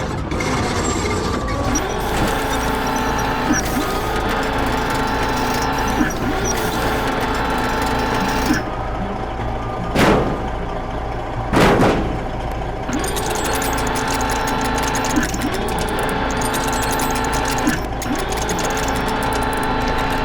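Cartoon construction-machine sound effects: a steady mechanical running sound with a pattern repeating about every second and a half to two seconds, and two short whooshes about ten and twelve seconds in.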